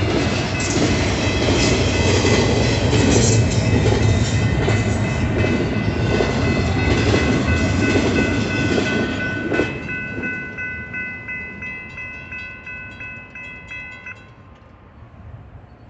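Double-stack intermodal freight train passing with a steady rumble and clatter of wheels on rail, until the last car clears a little over halfway through. A railroad crossing's electronic bell rings under it, about twice a second, and is heard clearly once the train has gone, then stops shortly before the end.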